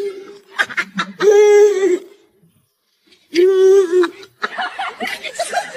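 A baby's voice: two drawn-out, steady-pitched squealing calls about two seconds apart, among short laughs and chuckles.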